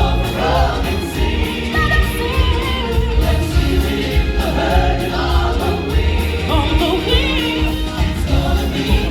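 Loud stage-show music: a choir of voices singing with vibrato over a strong, pulsing bass beat.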